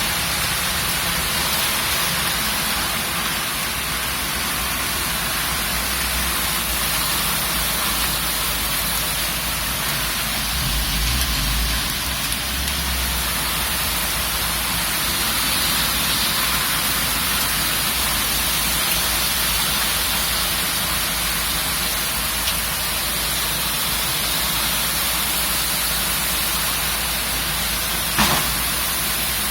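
Storm of heavy rain and strong gusting wind: a steady rushing noise with a low rumble that swells for a few seconds near the middle. A single brief knock sounds near the end.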